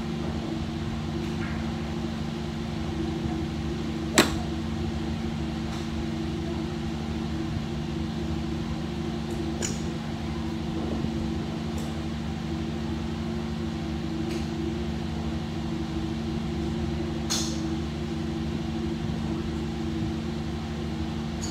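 Sharp clicks of golf clubs striking balls, the loudest about four seconds in and others near ten and seventeen seconds, over a steady mechanical hum.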